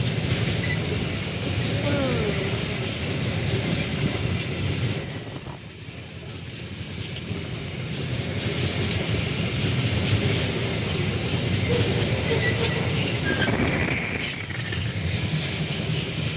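Coal-laden wagons of a long Babaranjang coal train rolling past close by: the steady rumble and clatter of steel wheels on the rails, easing briefly about five seconds in, with a few faint thin wheel squeals later on.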